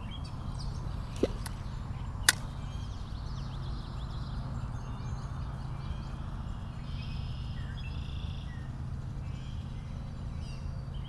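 Steady low outdoor rush of a creek bank, with birds chirping faintly. Two sharp clicks come about one and two seconds in, from handling a spinning rod and reel during a cast, the second one louder.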